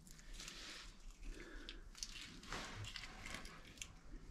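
Faint rustling and scraping with a few light clicks: handling noise, with the compressor not running.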